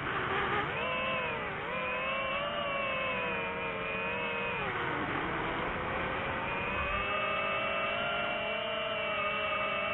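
Drone motors and propellers whining steadily, their pitch shifting with throttle, sagging about five seconds in and then rising again.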